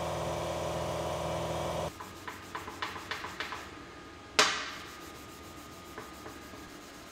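Small power sander with a 3-inch abrasive pad running steadily, stopping abruptly just under two seconds in. Then a run of light clicks and rubbing, and one sharp metal clank that rings out.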